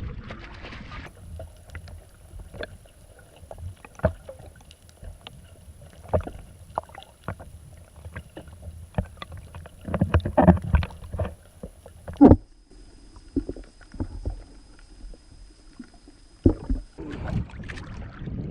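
Irregular knocks and bumps of handling on a fishing kayak, with a cluster of thuds about two-thirds through and one loud knock just after. A faint, thin, high steady whine runs underneath and changes pitch near the loudest knock.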